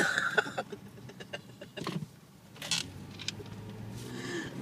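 Road and engine noise inside a moving car's cabin, a low steady hum, with scattered clicks and knocks.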